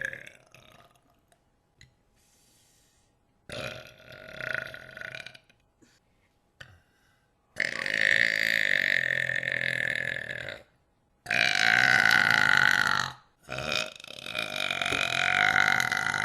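A person burping: two short burps about three and a half seconds in, then three long, drawn-out burps of two to three seconds each.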